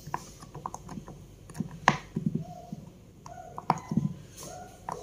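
Bubbles of a silicone pop-it fidget toy being pressed in by fingers: an irregular run of quick soft pops and clicks, with a louder pop about two seconds in and another near four seconds.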